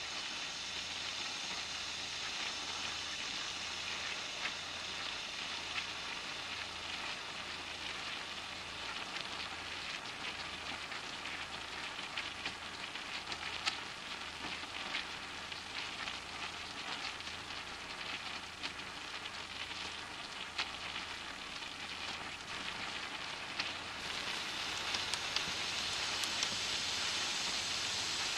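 Fish cakes frying in hot oil in a skillet: a steady sizzle with many small crackling pops, a little louder about four seconds before the end.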